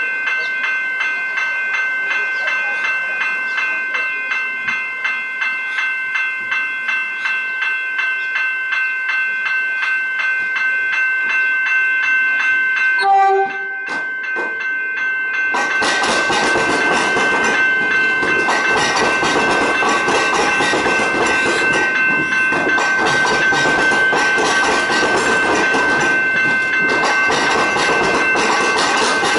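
Level crossing warning bells ringing in a steady pulsing rhythm. About 13 s in, an approaching Metro Trains Melbourne electric train gives a short horn blast. From about 15 s the train runs through the crossing, its wheels rumbling and clacking on the rails while the bells keep ringing.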